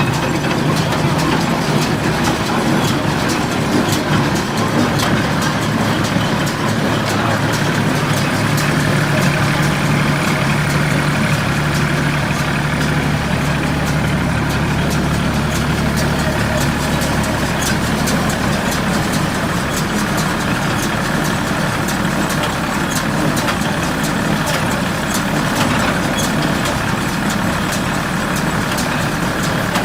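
Tractor engine running steadily, driving an International Harvester 430 square baler, with the baler's mechanism giving frequent clicks and knocks.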